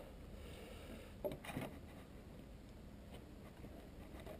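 Water lapping quietly, with two brief small splashes about a second and a half in, from a hooked ballan wrasse being handled at the surface.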